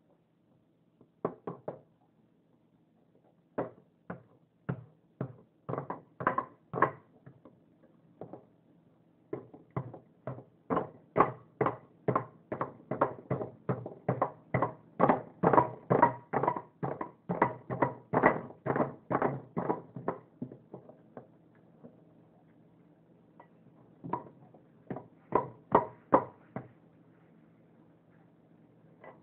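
Repeated sharp knocks on a block of ice sitting in a ceramic bowl, as someone works at it to free a toy frozen inside. The knocks come in runs of about two to three a second, with pauses between the runs.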